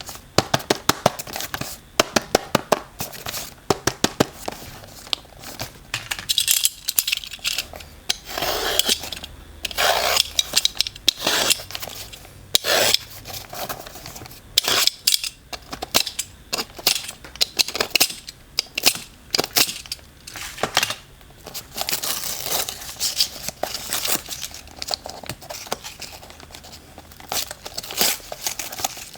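Packaging being handled and opened: many sharp clicks and taps, with bursts of tearing and crinkling.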